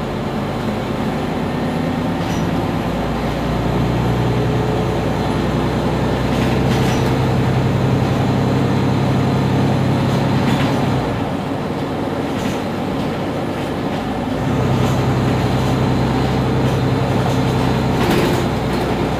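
Mercedes-Benz Citaro C2 city bus standing with its engine idling. A deeper, stronger hum comes in about three seconds in, drops away for a few seconds past the middle, and comes back near the end.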